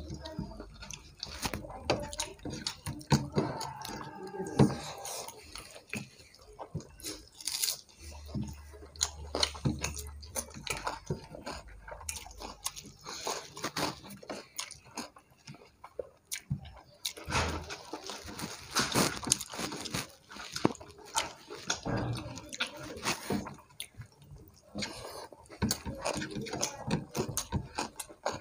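Two people eating rice and chicken curry by hand: wet chewing and mouth clicks, with fingers mixing rice on plates, in a steady irregular patter of small sounds.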